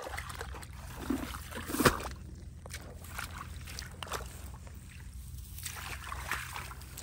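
Irregular sloshing and splashing in shallow muddy water, with one sharp, louder splash just under two seconds in.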